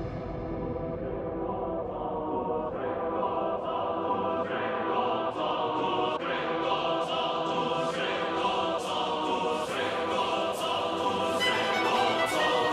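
Background music: sustained vocal-like chords, with a beat that comes in a few seconds in and builds toward the end.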